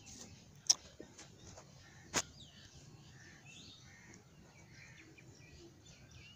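Faint bird chirps over low background noise, with two sharp clicks, one under a second in and one about two seconds in.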